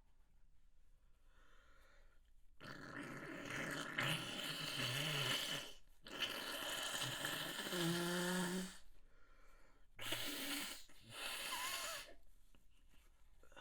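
A person blowing their nose hard after sneezing: four long, noisy blows, two of about three seconds each, then two shorter ones, with a brief voiced note at the end of the second.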